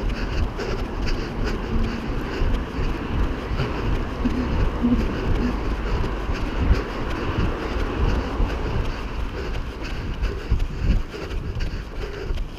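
Wind buffeting the microphone of a camera carried while running: a steady low rumble with gusty swells and jostling thuds.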